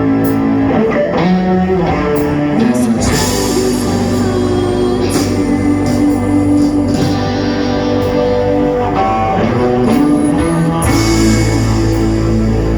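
Live band music led by guitar, in a rock style. A heavier bass line comes in about three seconds in, drops back briefly near the end, then returns.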